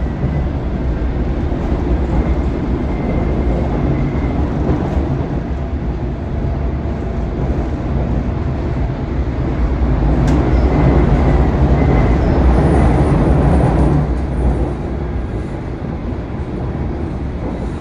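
London Underground train running fast, heard from inside the carriage: a loud, steady rumble of wheels on rail that swells for a few seconds around the middle, with a faint high squeal early on and a single click.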